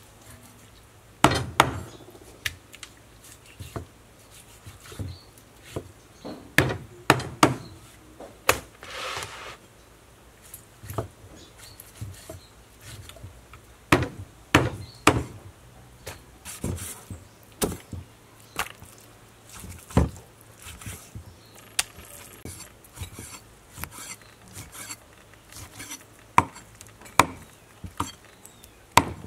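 Kitchen knife cutting raw pork on a thick wooden chopping board: irregular sharp knocks as the blade strikes the board, about one or two a second.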